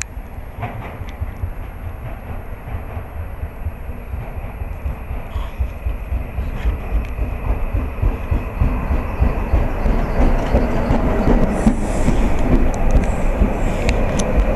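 Stainless-steel commuter electric train approaching and rolling in alongside the platform. It grows steadily louder, with its wheels clattering over the rails.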